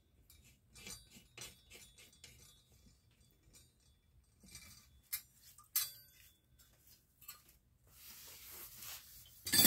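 Small clicks and metal taps as the fuel cap is closed on a Coleman 400 camp stove. About eight seconds in, a paper towel rubs across the tiled countertop, wiping up spilled fuel, and a single sharp knock comes near the end.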